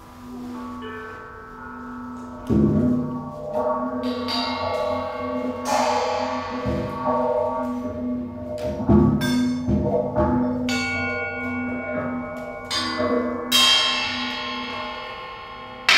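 Improvised percussion: cymbals and bell-like metal struck at irregular intervals and left ringing, some strikes with a low drum thud, over a steady low tone. It is quieter at first and grows loud with a hit about two and a half seconds in.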